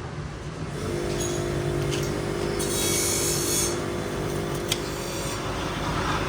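A workshop power tool starts running about a second in with a steady hum. A hissing burst comes about three seconds in, with a few sharp clicks.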